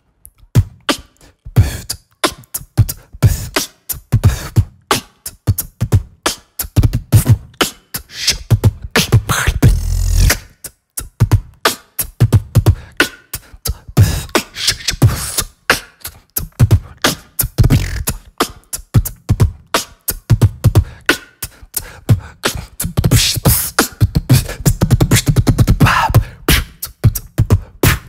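Beatbox soundtrack: a steady rhythm of sharp mouth clicks and deep bass hits.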